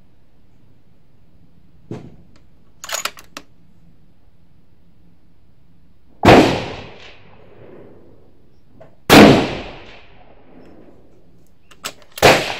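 Three rifle shots about three seconds apart, each a sharp, very loud crack with a short echoing tail, from bolt-action centrefire rifles on a shooting range. A few faint clicks come before them.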